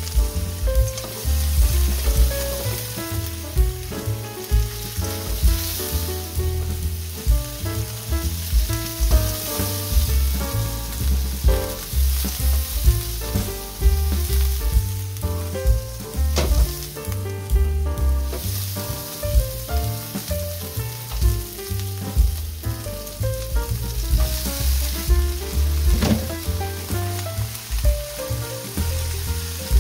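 Kkwari (shishito-type) peppers sizzling and spitting in hot oil in a nonstick wok, tossed with wooden chopsticks. The oil spits because the peppers went in still wet. Under the sizzle, a run of short low-pitched tones changing note by note over a pulsing bass, like background music.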